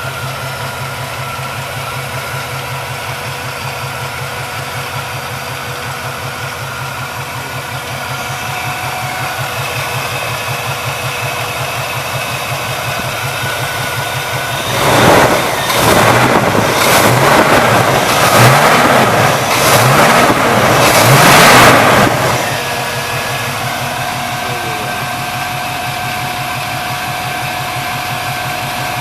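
Pontiac 455 V8 running at a fast idle just after its rocker arms were adjusted on new rocker studs to cure a valvetrain noise. Midway it is revved in a series of quick throttle blips for about seven seconds, then settles back to a steady idle.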